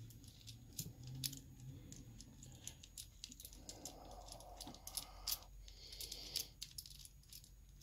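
Small precision screwdriver turning a Loctite-held screw out of a brass American Lock 5200 padlock body, with faint scattered metallic clicks and ticks.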